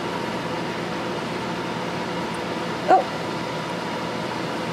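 Steady room hum with faint steady tones, and about three seconds in a single short yip from a dog.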